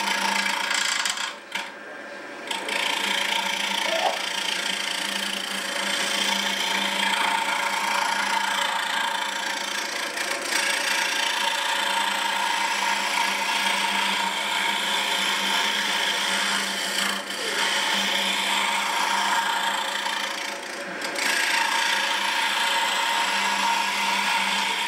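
A hand chisel scraping and cutting a spiral groove into a wooden lathe spindle. The cutting is continuous, with short pauses about two seconds in and again near the end, over a steady hum.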